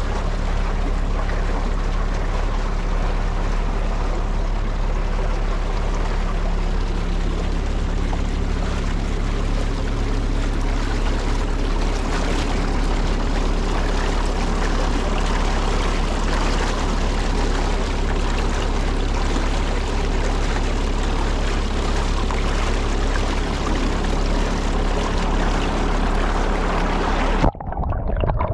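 Water rushing and pouring through a canal lock, with a narrowboat's engine running steadily underneath as a low hum. The sound cuts off suddenly near the end.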